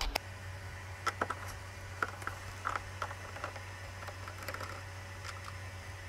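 Scattered small clicks and taps of a screwdriver and its extension bar being handled and fitted, over a low steady hum.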